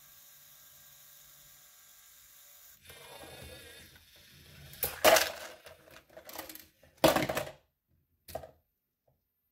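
LEGO robot motor whirring faintly as the grabber arm lowers a small plastic trash can, then rattling, then several loud clattering knocks as the can hits the tabletop and tips over onto its side; the loudest knocks come about five and seven seconds in.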